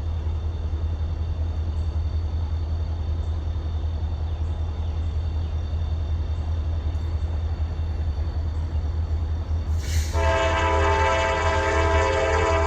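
Low steady rumble of approaching diesel locomotives, then about ten seconds in the lead CSX GP40-2's Nathan K5LA five-chime air horn starts blowing, a loud sustained chord that is still sounding at the end.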